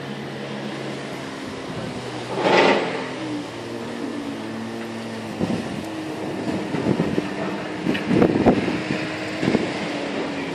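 An engine running steadily, its hum stepping in pitch a few times. A brief loud rush comes about two and a half seconds in, and a run of scuffs and knocks fills the second half.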